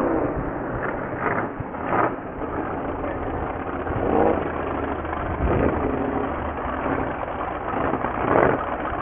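Engines of two small vintage racing hydroplanes running at speed across the water, a steady motor hum with a few brief louder moments.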